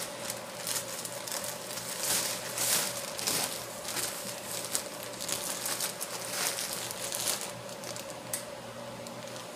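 Plastic mailer bag rustling and crinkling in short irregular bursts as it is handled, dying down about two seconds before the end.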